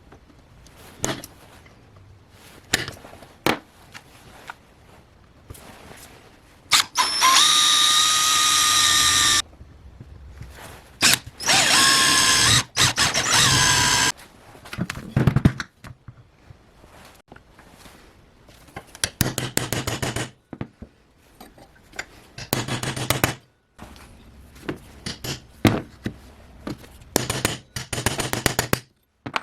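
Electric power tool running in bursts, its motor whine holding a steady pitch. The two longest runs come about a quarter and just under half way in, with shorter bursts later on. Knocks and clicks of tools being handled fall between the runs.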